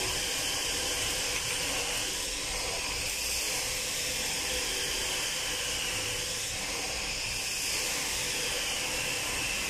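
Steady, even hiss of ship engine-room background noise, with no distinct knocks or clicks from the hand work.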